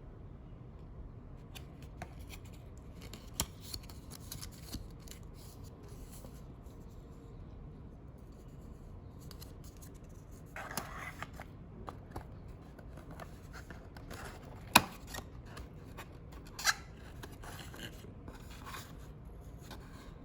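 Hands handling packaging and small objects: scattered light clicks and rustles, with a short rustle about halfway through and two sharp clicks about two seconds apart in the second half.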